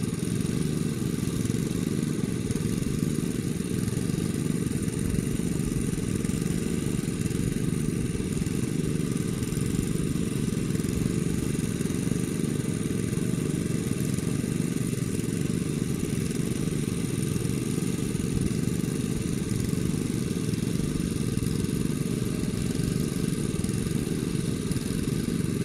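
A small engine running steadily at an even pitch as a low, continuous rumble.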